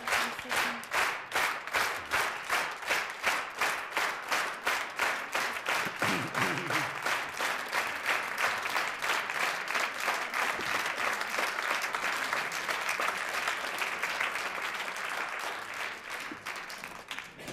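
Studio audience applauding, clapping together in rhythm at about three claps a second, then fading near the end.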